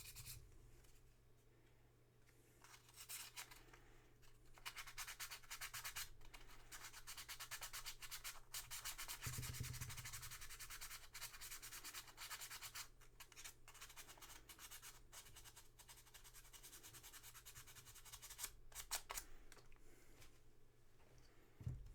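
Fast back-and-forth rubbing or scrubbing of a small part of a vintage jeep headlight switch being cleaned by hand, with a couple of short pauses.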